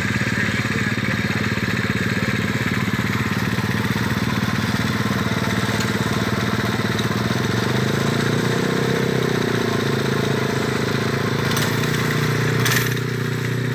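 Small mini bike engines running, with one engine's pitch rising as it pulls away about eight seconds in. A short sharp click comes near the end.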